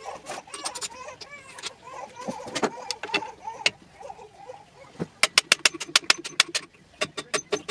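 A hand ratchet clicking rapidly, about seven clicks a second, in two quick runs as a bolt is turned on an LS engine block during teardown. Indistinct voice-like sounds come before the clicking.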